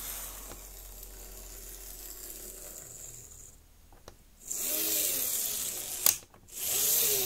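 Lima Class 55 Deltic model locomotive's motor bogie running along the track with its shell off, a whirr of motor and gears, freshly cleaned and oiled. The whirr is faint at first and gets louder from about four and a half seconds in, with its pitch rising and falling as the chassis passes close. There is a sharp click about six seconds in.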